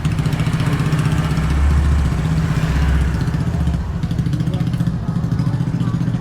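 Honda Beat scooter's single-cylinder engine running steadily, heard close up from a camera mounted on the scooter.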